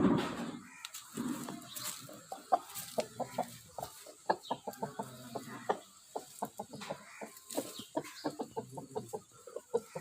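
Aseel chickens clucking, many short calls in quick succession, with a louder burst of sound right at the start.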